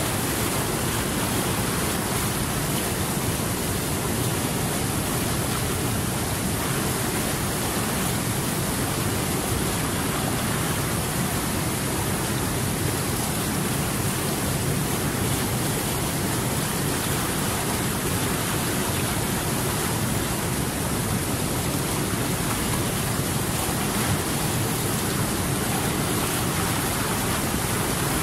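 Steady, unbroken rushing of water, an even hiss across high and low pitches with no single drops or splashes standing out.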